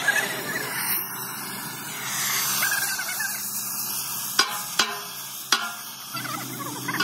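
Oxy-fuel torch flame hissing steadily as it heats the bend line of thick steel plate, with three sharp clicks a little past the middle.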